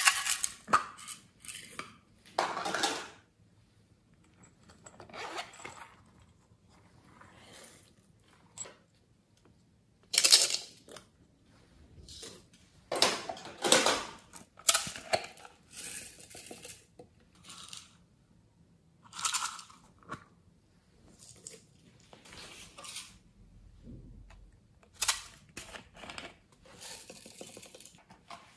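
Plastic toy-shaped containers being handled and shaken, pouring glitter and sequins onto a glass tray: irregular rattles, taps and clicks with quiet gaps between.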